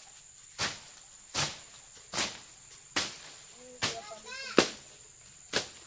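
Seven sharp strikes of a hand tool at a steady pace, about one every 0.8 seconds; the sixth, a little past halfway, is the loudest. A steady high-pitched insect drone runs underneath.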